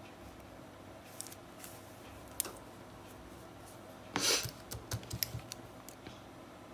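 Small scissors being handled and snipping a wool yarn tail: a brief rustle a little over four seconds in, then a quick run of light, sharp clicks from the blades.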